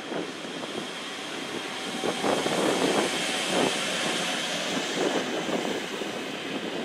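An ÖBB electric locomotive hauling double-deck CityShuttle coaches runs past, with wheels rumbling on the rails. It grows louder about two seconds in, with a few irregular clacks and a faint steady high whine.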